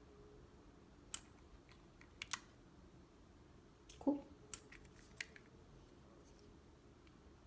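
Triangle push button clicking as it is pressed and released, a few sharp separate clicks spread over several seconds, with one duller knock about four seconds in.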